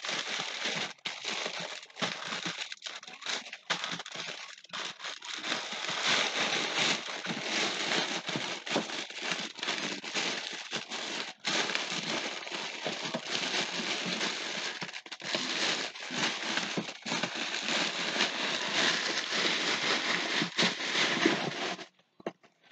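Plastic packaging crinkling and rustling as it is handled and pulled at close to the microphone, in a continuous, uneven stream that stops about a second before the end.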